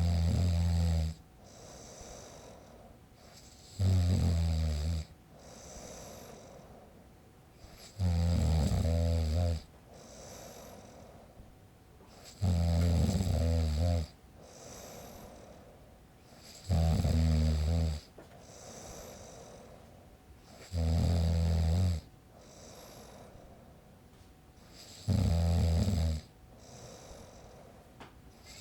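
A man snoring steadily: seven loud, low, rattling snores about four seconds apart, each lasting about a second, with a quieter breath between each.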